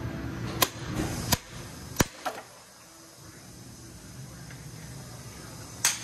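Six sharp clicks and knocks: five in the first two and a half seconds, one more near the end, over a low hum that fades out about two and a half seconds in.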